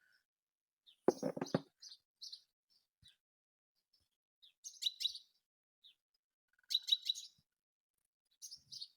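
Small songbirds chirping in quick clusters of short, high chirps, with gaps between. A short, louder noise comes about a second in.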